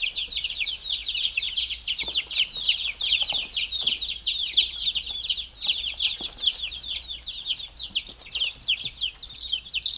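A brood of week-old chicks peeping without a break, many short, high, falling peeps overlapping one another.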